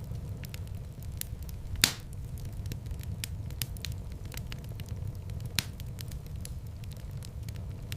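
Wood fire burning with a steady low rumble and frequent sharp crackles, two louder pops standing out about two seconds in and near six seconds in.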